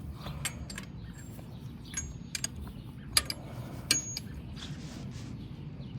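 Metal hand tools clinking: several sharp metallic clicks with a brief ring, a wrench being handled and tried on the motorcycle's drain bolt, over a steady low hum.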